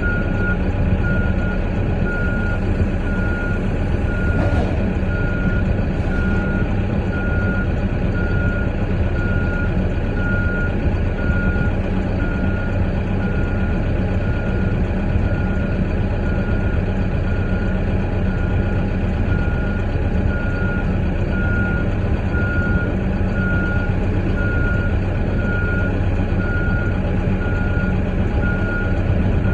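Reversing alarm beeping steadily, about once a second, over the steady running of a heavy diesel engine, heard from inside the vehicle's cab.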